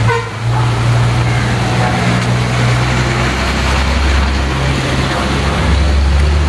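Diesel bus engine running steadily as the bus passes close by, with tyres hissing on the wet road and rain. A motorcycle rides past near the end.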